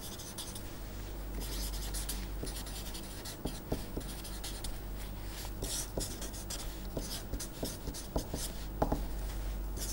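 Marker pen writing on paper: a run of short, irregular scratchy strokes as words are written out, over a steady low hum.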